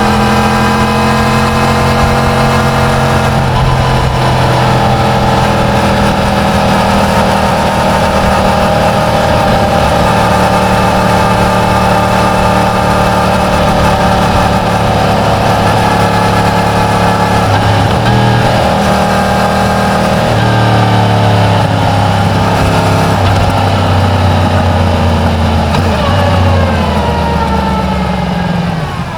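Yamaha MT-10's crossplane inline-four engine running through its stock exhaust while riding. The engine note falls in the first few seconds, holds fairly steady with small shifts in speed, and drops again near the end as the bike slows toward idle.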